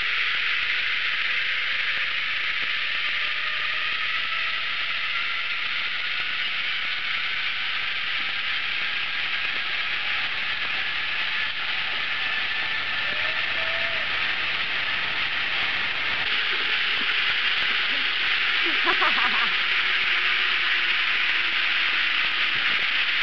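Steady, shrill insect chorus, an even high hiss, with a few short pitched calls near the end.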